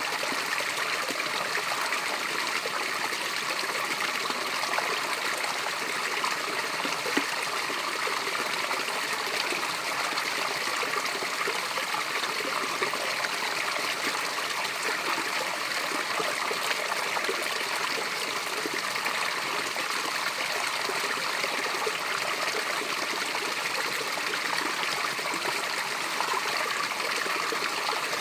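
Water of a small natural waterfall (cascade) falling and splashing steadily, an even hiss with no breaks or changes.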